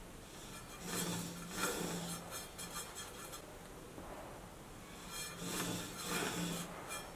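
Wood lathe running in two short bursts, each with a steady low motor hum. A pencil held against the turning wooden blank makes a scratchy rubbing as it marks rings around it.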